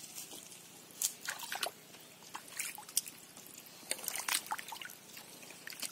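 Hands sloshing and patting through shallow muddy water, with small irregular splashes and drips.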